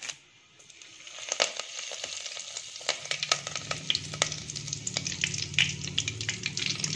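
Fresh curry leaves frying in hot oil in an aluminium pot: a sizzle that starts about a second in, thick with sharp crackles and pops as the leaves spit in the oil.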